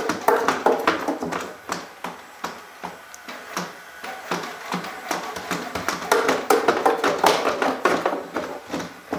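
Unitree Go2 robot dog's feet tapping and clattering on wooden stair treads as it struggles to climb, in irregular quick knocks that come in flurries: one just after the start and a busier one from about six to eight seconds in.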